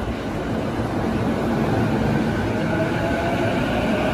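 JR East E233 series electric train pulling out and gathering speed, with wheels rumbling on the rails. The whine of its inverter-driven traction motors rises in pitch from about two seconds in, and the sound grows louder as the cars pass close by.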